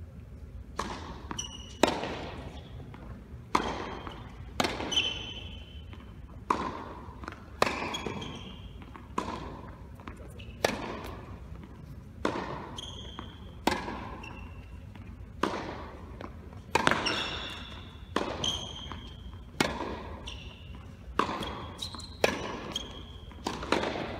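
Tennis rally on an indoor hard court: sharp racket strikes and ball bounces about every second, each echoing through the large hall, with short high squeaks of tennis shoes on the court surface.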